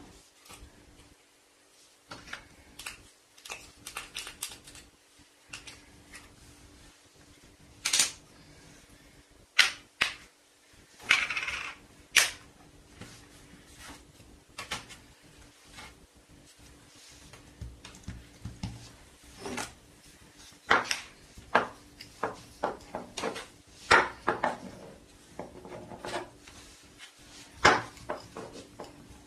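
Irregular light taps and clicks of a plastic Play-Doh mould and fingers on a wooden tabletop while modelling dough. Near the end a small wooden rolling pin rolls over the dough on the table.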